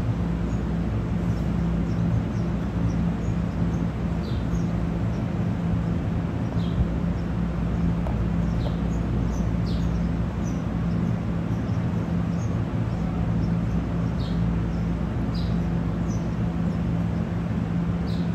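A steady low hum with several even pitch lines, with a small bird giving short, high, falling chirps every second or two over it.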